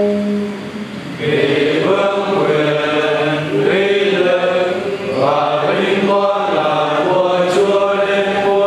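Choir singing a liturgical chant during Mass, held notes moving in phrases, with a short break about a second in and another midway.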